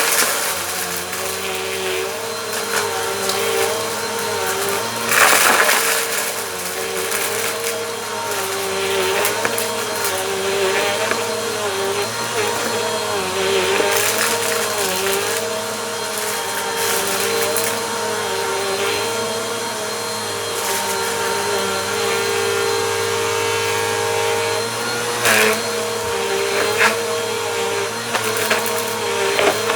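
Bissell Compact vacuum cleaner running on a rug, its motor pitch wavering as it is pushed back and forth in passes. Short surges of crunching as it sucks up grit and dirt, the loudest about five seconds in and again near the end.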